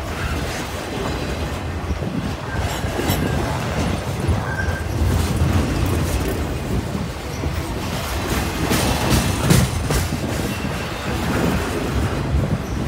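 Freight cars of a long manifest train rolling past close by: a steady rumble of steel wheels on rail with rhythmic clatter over the joints, and a run of louder clanks about nine seconds in.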